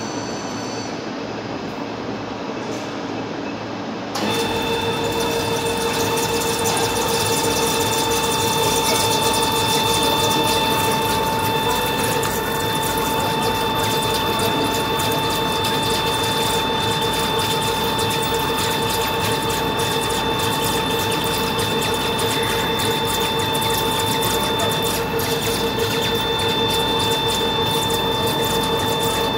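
WRD 180 H horizontal boring and milling machine's milling cutter cutting steel. About four seconds in the sound gets louder and a steady multi-tone whine sets in over a fast crackle, which then holds steady.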